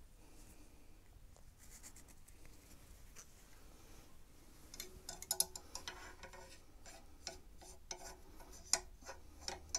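Faint rubbing and small sharp ticks of a cleaning rod and patch being worked through a rifle's receiver and freshly reamed chamber, clearing out the cutting fluid. It is nearly silent for the first few seconds, then comes a scatter of light clicks from about five seconds in.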